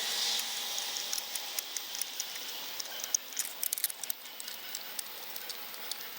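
Light, scattered metallic clicks and taps of a spark plug socket and extension as new spark plugs are threaded in by hand, coming thicker from about halfway through, over a faint steady hiss.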